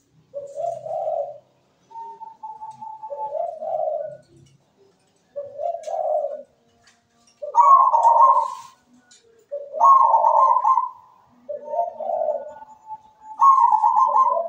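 Zebra dove (perkutut) cooing its rhythmic song: a run of rolling coo phrases, some opening with a held higher note, one every second or two, loudest in the middle and near the end.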